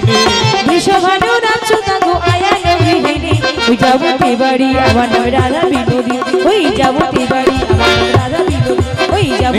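Bengali kirtan ensemble music: a hand drum plays a steady rhythm under melodic instruments, without speech.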